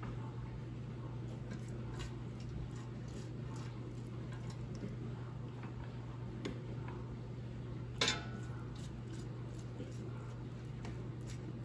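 Silicone pastry brush dabbing buffalo sauce onto chicken wings in a perforated air fryer basket and dipping into a small sauce dish: soft wet dabs and light clicks, with one sharper click about eight seconds in. A steady low hum runs underneath.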